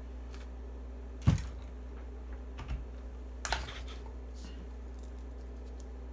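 A handful of separate clicks and taps from handling a digital multimeter, its test probes and a pen, with the sharpest, loudest knock about a second in, over a steady low hum.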